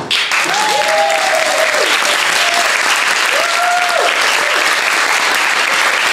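Theatre audience applauding at the end of a song, with a few voices cheering in drawn-out whoops near the start and again about three seconds in.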